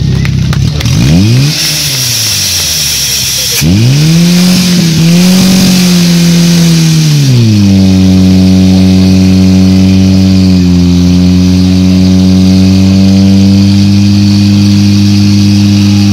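Portable fire pump's engine revving hard, its pitch rising and falling, then about seven and a half seconds in dropping slightly and holding a steady drone as it drives water through the hoses to the jets.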